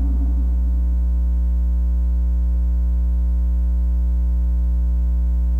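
Steady electrical mains hum in the church's microphone and sound-system feed: a loud, unchanging low hum with a buzzing stack of overtones above it.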